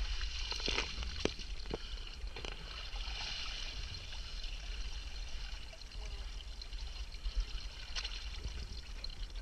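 Seawater sloshing and splashing at the surface against a dive boat's hull and ladder, with a few sharp knocks in the first couple of seconds and one more near the end.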